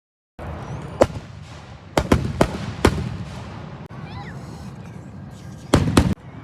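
Fireworks going off in a series of sharp bangs over a low rumble: one about a second in, three in quick succession between two and three seconds, and two more close together near the end, after a brief dead-silent break at the start.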